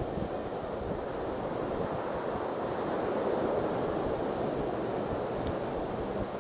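Ocean surf washing in as a steady rush that swells to a peak about halfway through and then eases, with some wind on the microphone.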